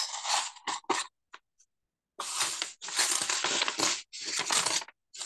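Craft-knife blade scraping dried ink off paper in a series of short scratchy strokes, with a pause of about a second in the middle. The scraping removes excess ink where a calligraphy stroke has come out too thick.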